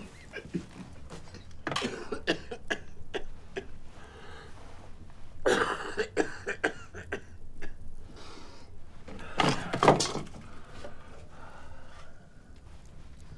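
A man coughing in several harsh bouts, the loudest about ten seconds in.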